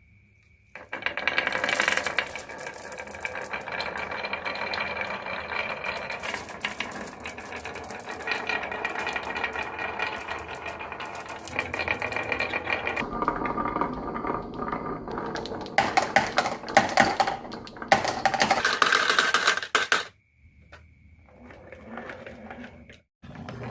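Many marbles rolling and clattering down a marble run: a dense, rapid rattle of clicks that starts about a second in, turns into louder sharp clattering spells toward the end, then stops suddenly and leaves only a weaker rattle.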